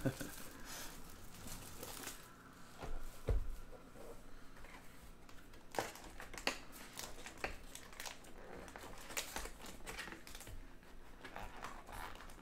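Trading-card pack wrappers crinkling and tearing as packs are opened and cards are handled, in scattered short crackles, with a single thump about three seconds in.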